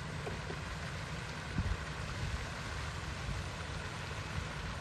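Wind buffeting the microphone over a steady rush of water from a pond's spray fountain, with one stronger gust about a second and a half in.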